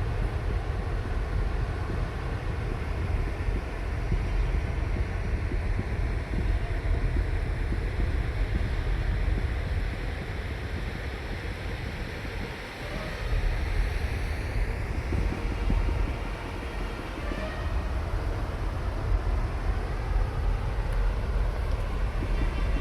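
Overflow water from a full dam rushing steadily down the spillway into its tunnel: a continuous rushing noise with a heavy low rumble.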